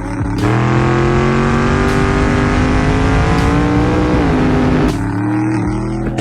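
Race car engine accelerating hard on a test pass, its pitch climbing steadily and then dropping once about four seconds in, as on a gear change, before climbing again.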